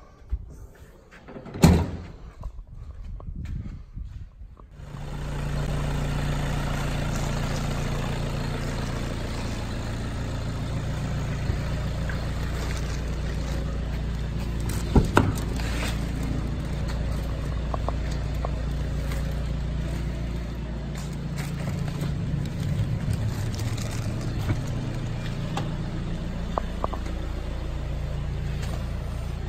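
A sharp thump about two seconds in, then from about five seconds in a car engine running steadily at idle, with a slight unevenness about twenty seconds in.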